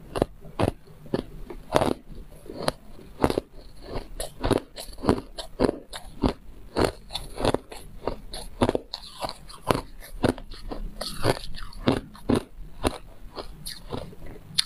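Refrozen white ice being bitten and chewed, a quick run of sharp crunches, several a second.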